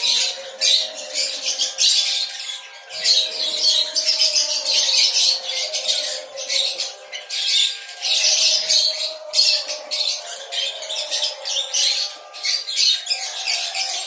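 A colony of small parrots (lovebirds, budgerigars and cockatiels) chattering and squawking together in an aviary, a dense, shrill din of overlapping calls coming in irregular bursts.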